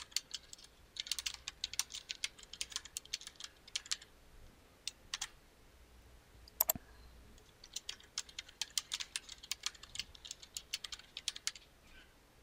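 Typing on a computer keyboard in two runs of rapid keystrokes, with a few single clicks in the pause between them.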